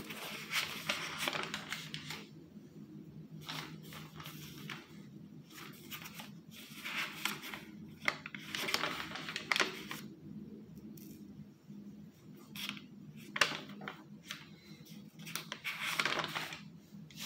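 Handwritten lined-paper notebook pages being turned and handled by hand: a series of short paper rustles, with pauses between them.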